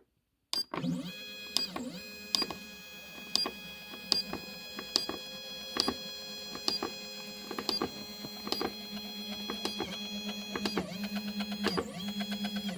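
Stepper motor of a Vevor 3018 Pro CNC router whining steadily as it drives the bed slowly along, starting about half a second in. Sharp clicks recur about once a second.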